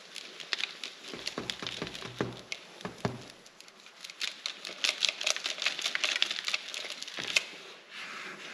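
Granular bacterial preparation pouring from a plastic jar into a plastic bucket: a dense patter and hiss of grains landing on the pile, with a few dull knocks in between.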